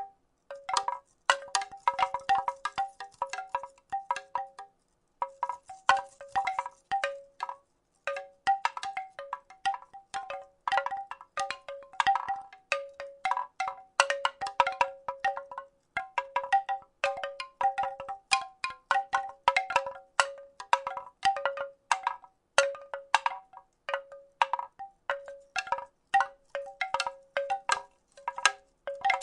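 Wooden rattle being shaken: quick, uneven clusters of hollow wooden clacks, each with a short pitched ring. There are brief pauses about five and eight seconds in.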